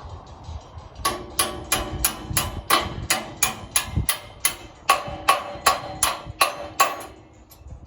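A hammer striking metal in a steady series of blows, about three a second, each one ringing briefly; the blows begin about a second in and stop shortly before the end.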